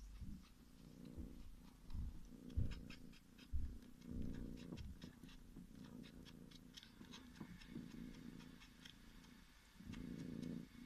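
Domestic cat purring in swelling waves while it sucks and kneads a blanket, with quick small wet clicks from the sucking.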